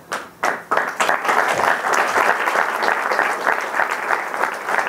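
Audience applauding: a few scattered claps at first, then steady applause from about a second in.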